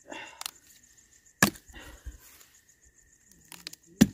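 Dry wood being broken and chopped from a fallen pine branch with a curved hand blade: a crackle of snapping twigs at the start, then two sharp chops, one about a second and a half in and one near the end.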